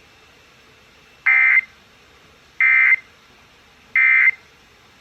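Emergency Alert System end-of-message code: three short, identical bursts of digital data tones about a second apart. They are the SAME 'NNNN' signal that marks the close of the alert message.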